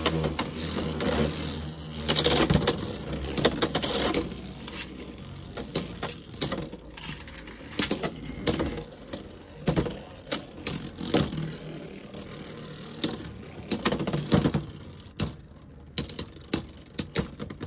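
Two Beyblade X tops, Wyvern Gale and Hell's Chain, spinning in a plastic stadium and clacking together again and again. The whir is strongest just after the launch, and the clicks of their hits go on throughout.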